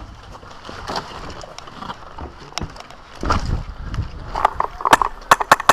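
Rustling handling noise on the microphone with a heavy bump, then a quick run of sharp clicks and knocks near the end.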